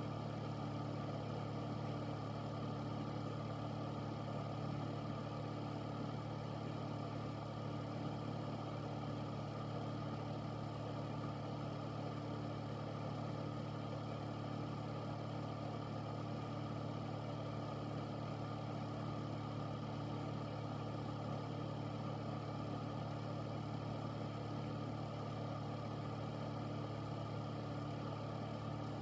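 Air filter fan running steadily: an even rush of air over a constant low motor hum.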